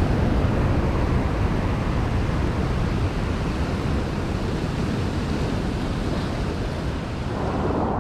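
Rough sea surf breaking and washing over shoreline rocks: a steady rush of churning white water.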